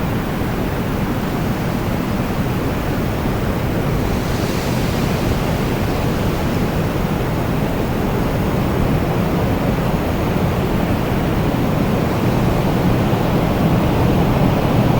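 Strong wind blowing steadily, a deep, even rush with a brief hissing gust about four seconds in, growing slightly louder near the end.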